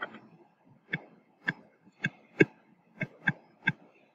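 A stylus tapping and clicking on a touchscreen as a word is handwritten: short, sharp ticks at an uneven pace, roughly two a second.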